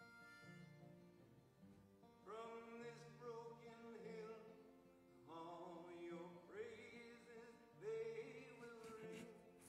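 A man singing a song to his own acoustic guitar. The guitar plays alone at first, and the voice comes in a little over two seconds in, with several sung phrases after that.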